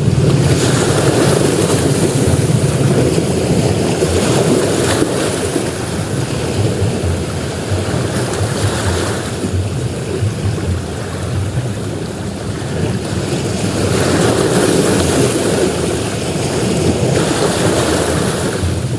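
Ocean surf: waves breaking and washing up a beach in a continuous rush that swells and eases every few seconds.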